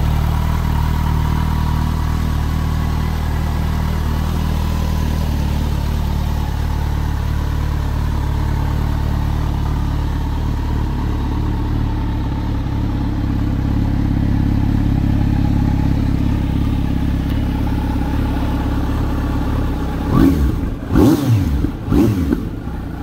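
2020 Kawasaki Z900's 948 cc inline-four idling steadily through an SP Engineering aftermarket exhaust, then blipped three times in quick succession near the end.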